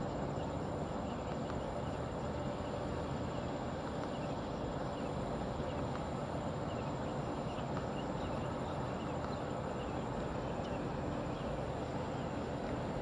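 Outdoor field ambience: a steady high insect drone and faint, scattered small-bird chirps over a low, even rumble.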